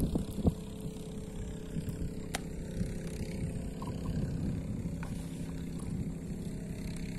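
Small boat engine running steadily at an even speed.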